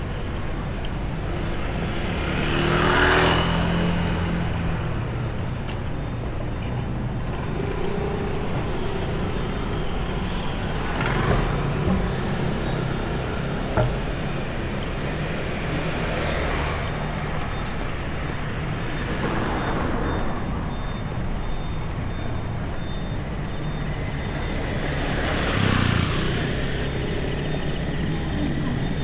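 City street traffic: a steady rumble of engines with about five vehicles passing close by, the loudest about three seconds in and again near the end.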